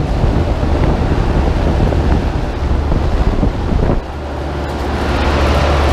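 Outdoor condenser fans of Ruud split-system condensing units running loudly, their air rush buffeting the microphone. About four seconds in, the noise drops and a steady low hum from the next unit comes forward.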